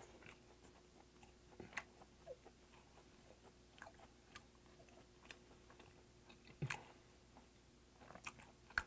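Faint chewing of grilled Patagonian toothfish, with scattered soft mouth smacks and small clicks, a few of them louder about seven seconds in and near the end. A faint steady hum sits underneath.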